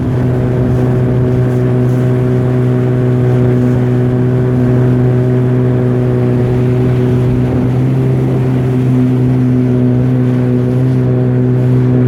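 Boat motor running at a steady speed, a constant engine hum.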